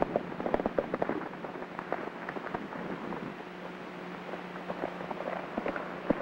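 Hoofbeats of horses galloping on a dirt trail, heard as many irregular knocks. Over them is the crackle, hiss and steady low hum of a worn 1930s optical film soundtrack.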